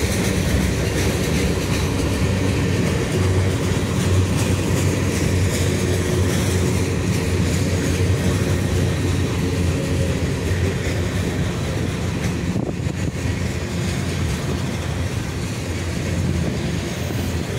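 Cars of a CSX manifest freight train rolling steadily past at close range: steel wheels running on the rails.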